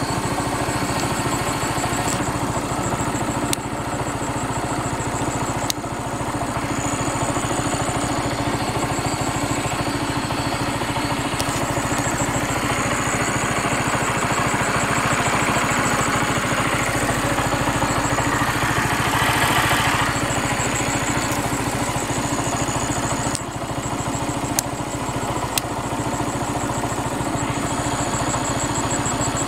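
Motorcycle engine, the single cylinder of a Bajaj Pulsar 135 LS, running steadily at low speed, swelling in the middle for several seconds, with a few sharp clicks.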